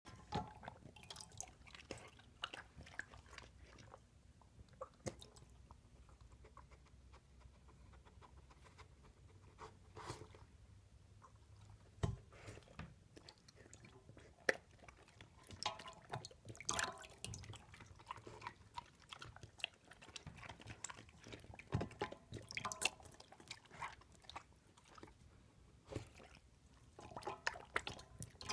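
A dog eating cereal from a stainless steel bowl: irregular crunching and chewing with scattered sharp clicks, busier in the second half.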